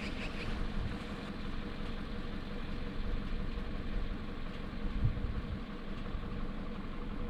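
A vehicle engine idling steadily, a low rumble with a constant hum. A few short high chirps sound right at the start, and there is a brief low thump about five seconds in.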